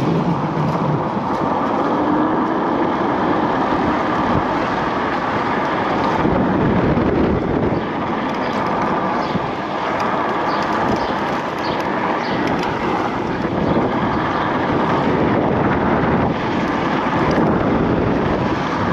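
Wind rushing over the camera microphone with road and tyre noise from an electric scooter riding at speed: a steady, loud rush.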